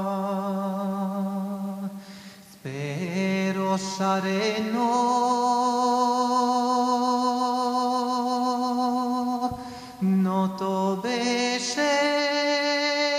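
Solo male voice singing a traditional Serbian song from Homolje in long, drawn-out wavering notes, sliding up in pitch a few seconds in and breaking off briefly for breath twice.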